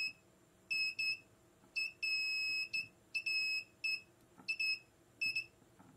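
MCL-TECH inductive short-circuit locator beeping in irregular short bursts of one high tone, with one longer beep about two seconds in. Each beep marks the probe passing over the board trace that carries the short-circuit current.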